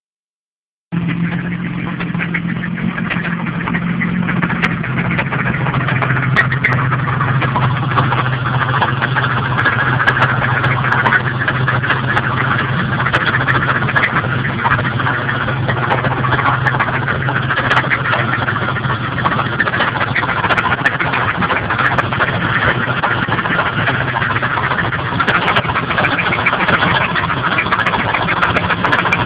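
Pontiac Firebird's 3.8-litre V6 engine running steadily, with a noise that the owner suspects comes from a bad oil pump.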